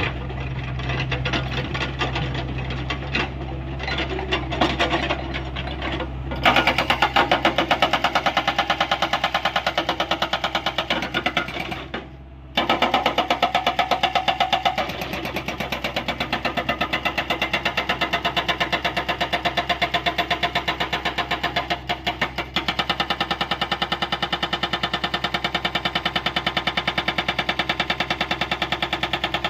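Excavator's diesel engine running, then about six seconds in its hydraulic rock breaker starts hammering in a fast, even rattle of blows. The hammering stops for a moment about twelve seconds in and dips briefly near twenty-two seconds before carrying on.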